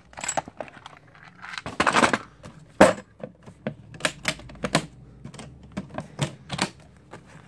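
Metal-and-plastic toolbox being handled: its metal latches clicking and tools and parts rattling inside, a fast string of clicks and clatters with the sharpest snap just under three seconds in.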